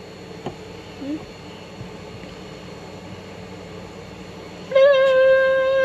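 Quiet background for a few seconds, then near the end a person's voice holds one steady, high note for about a second.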